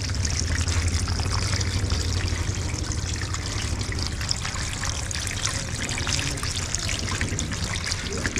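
Water churning and trickling with fine crackles at the surface of a densely packed, bubbling holding tank of monosex tilapia fry, over a low steady hum.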